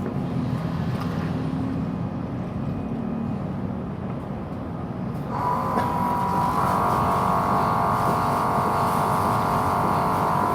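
Low mechanical rumble, then about five seconds in a motor starts up and runs with a steady whine over the rumble.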